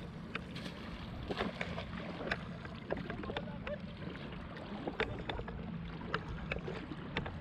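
Water sloshing and splashing around legs wading through a shallow river, with scattered small drips and splashes from a wet nylon cast net being carried and swung.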